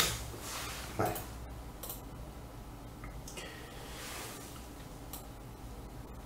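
A few scattered clicks from a computer mouse over a low steady hum, with a brief soft rush of noise around the middle.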